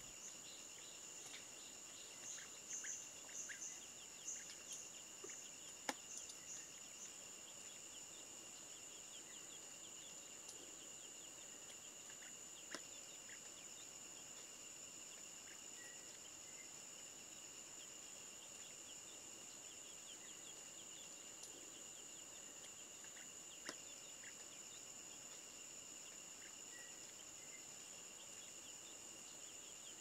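Faint, steady drone of forest insects on two high pitches, with a few short high chirps in the first several seconds and the odd soft click.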